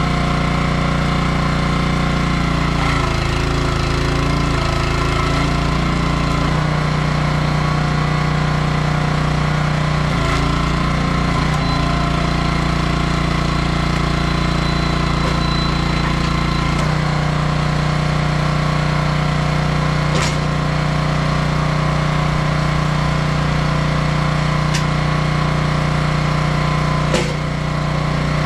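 Small gas engine of a 27-ton hydraulic log splitter running steadily, its note shifting a few times as the splitter works. Three sharp cracks sound in the second half.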